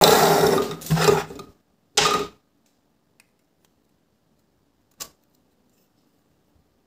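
Handling noise as small parts are moved and knocked together: a clattering rustle lasting about a second and a half, a shorter one about two seconds in, then a single sharp click about five seconds in.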